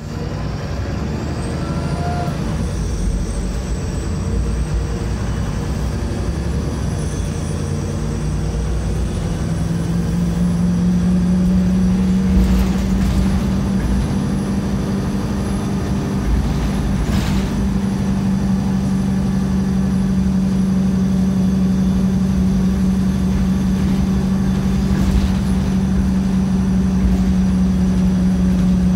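Inside a moving VDL SB200 single-decker bus: a steady engine and drivetrain hum from its rear-mounted engine that rises slightly in pitch about ten seconds in and then holds steady. A few sharp clicks and knocks sound over it.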